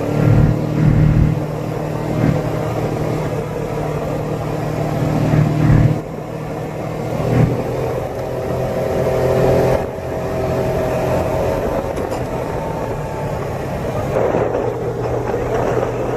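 A motor vehicle engine running steadily, its pitch shifting a couple of times.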